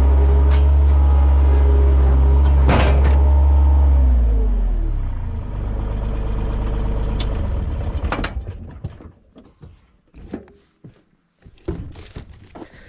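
A large engine running steadily, then slowing down about four seconds in and shutting off about eight seconds in, followed by a few scattered clicks and knocks.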